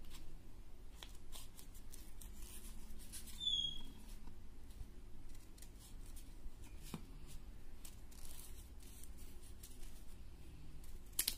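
Scissors snipping through folded craft paper: scattered short, irregular snips, with a sharper snip near the end. A brief high chirp about a third of the way in.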